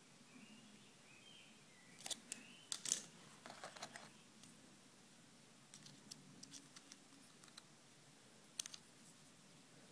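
Faint, scattered clicks and scrapes of pliers and wire being worked into a champagne cork, with a cluster of sharper clicks about two to four seconds in and lighter ticks later.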